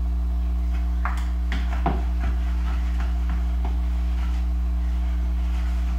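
A utensil tapping and scraping in a plastic mixing bowl as glutinous rice flour is stirred into mashed banana dough: scattered light clicks and scrapes over a steady low hum.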